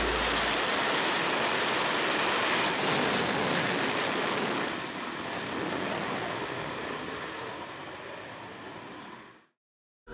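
Dassault Rafale Marine's twin M88 jet engines at full power with afterburner during a catapult launch off a carrier deck: even jet noise that holds for about four seconds, then fades away and drops out to silence near the end.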